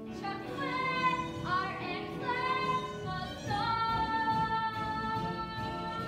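Children's musical theatre singing on stage with music: a few short sung phrases, then one long held note from about three and a half seconds in.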